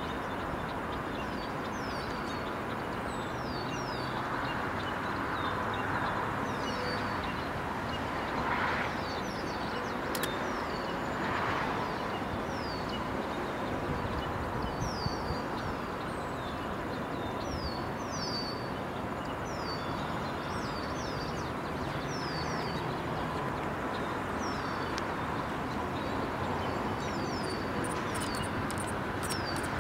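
Small birds chirping over steady outdoor background noise: many short falling chirps, about one a second, and a quick run of very high ticks near the end.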